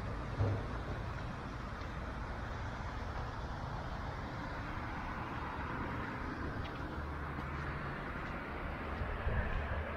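Road traffic noise: a steady wash of vehicles on the street, with a short low thump about half a second in.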